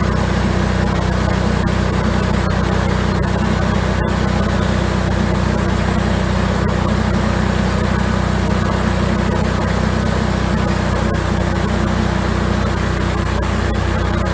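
An engine running steadily at a constant speed, with no change in pitch or loudness.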